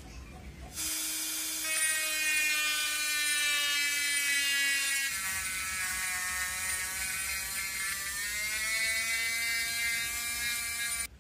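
Handheld rotary tool spinning a small sanding drum against the edge of a steel axe head: a high motor whine that starts about a second in, drops in pitch about halfway, climbs again near the end and cuts off suddenly.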